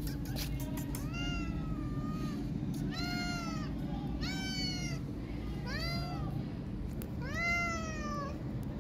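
Tabby kitten meowing repeatedly: five high-pitched meows spaced about a second apart, each rising and then falling in pitch.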